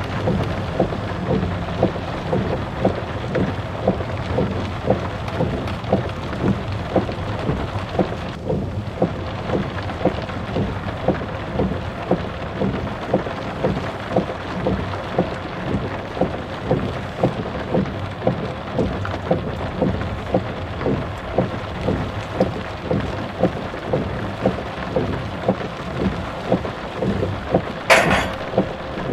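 Steady rain with a regular series of soft thuds about twice a second, and a brief sharp noise near the end.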